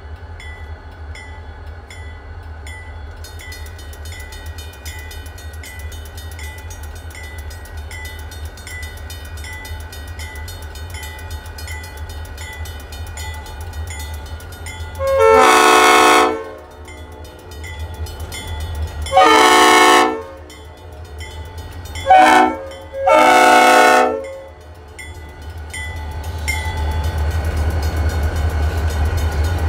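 Leslie RS5T five-chime air horn on a GP40 diesel locomotive sounding the grade-crossing signal, long, long, short, long, starting about halfway through. Beneath it the diesel engines rumble steadily, growing louder near the end as the locomotives pass, and a crossing bell dings about twice a second.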